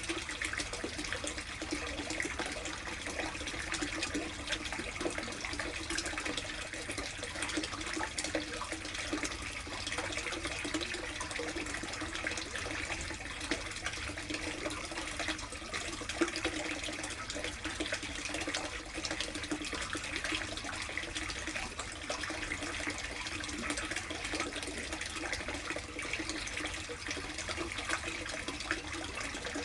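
Water running steadily into a plastic koi tub, with a constant patter of small splashes.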